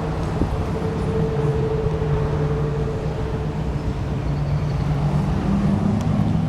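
A motor vehicle engine idling steadily: a low, even drone with a faint higher tone above it, its pitch wavering slightly.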